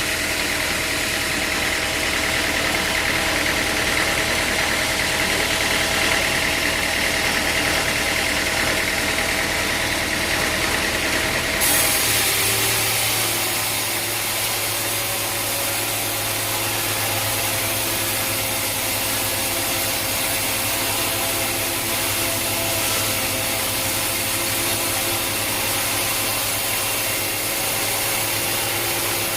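Sawmill machinery running steadily, a motor or engine droning. The sound changes abruptly about twelve seconds in to a different steady drone.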